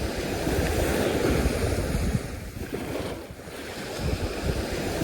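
Waves washing onto a sandy beach, with wind buffeting the microphone. The wash swells, eases about halfway through, then builds again near the end.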